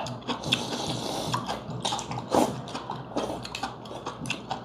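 Slurping and sucking soft, squishy snailfish flesh and soup off a spoon, with a run of irregular short wet clicks and smacks.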